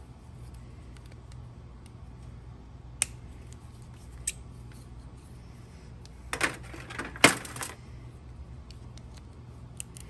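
Small metal pieces of old lock hardware clinking as they are handled and set down: a single sharp click about three seconds in and another a second later, then a clatter of several clinks near the end, the loudest about seven seconds in. A steady low hum runs underneath.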